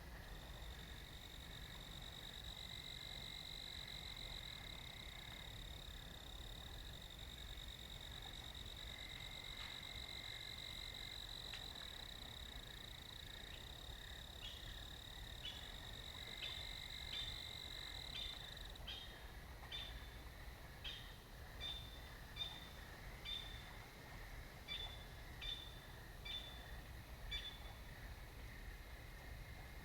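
A small night animal's continuous high trill, held for about eighteen seconds, then breaking into a string of short high chirps a little more than one a second. A fainter, lower trill starts and stops underneath.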